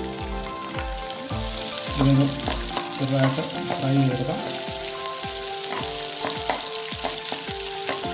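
Oil sizzling as peanuts, mustard seeds, curry leaves, green chillies and ginger fry in a non-stick pan, with a steel spoon stirring and scraping through them from about two seconds in. Background music with a steady beat plays underneath.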